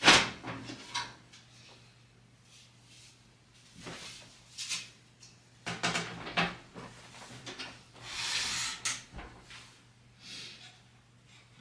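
Panels of a Lian Li Lancool 216 PC case being handled: a sharp knock at the start, then scattered clicks and rubbing, and a scraping slide of about a second near the end.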